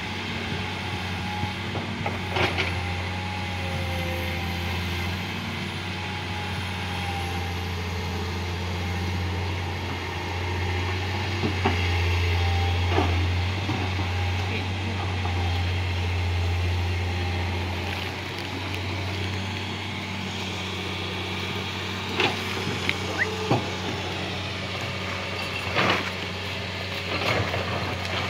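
Steady low drone of heavy diesel machinery running, with a few sharp knocks and clanks scattered through it, the loudest near the end.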